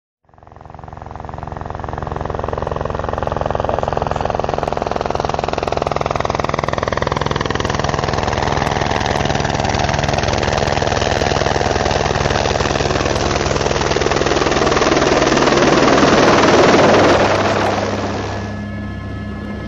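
Helicopter rotor and turbine, fading in and growing louder as it comes close, with a steady low chopping from the blades. It is loudest a couple of seconds before the end, then drops away sharply.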